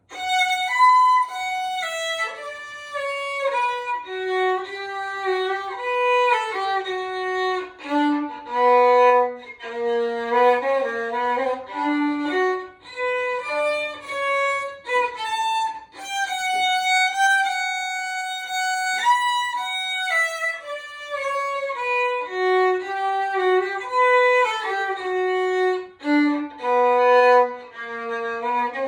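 Solo violin playing a melody of held, bowed notes, one note at a time, starting abruptly.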